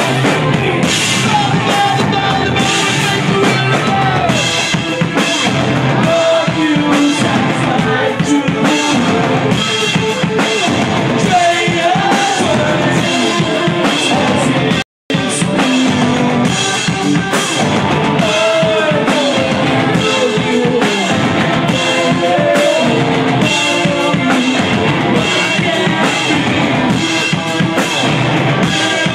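A live rock band playing loud: electric guitars over a pounding drum kit, with a brief cut-out to silence about halfway through.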